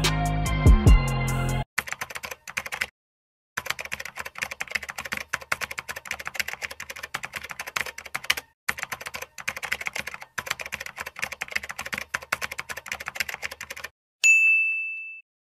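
Typing sound effect: runs of rapid key clicks with short pauses between them, ending in a single bright bell ding about fourteen seconds in. Before the typing, hip-hop music with deep bass cuts off abruptly under two seconds in.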